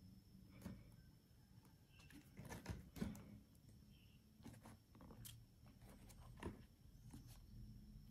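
Near silence with a few faint, scattered taps and rustles from a new shoe being handled in its tissue-lined cardboard box.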